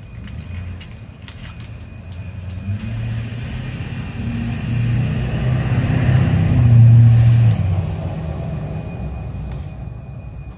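Low engine rumble of a passing motor vehicle, growing louder to a peak about seven seconds in, then fading.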